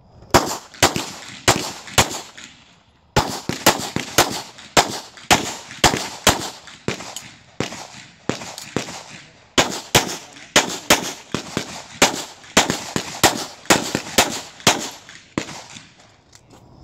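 CZ Shadow 2 9mm pistol firing a long string of rapid shots, mostly in quick pairs, each with a short ringing echo. There is a brief pause about three seconds in, and the shooting stops about a second before the end.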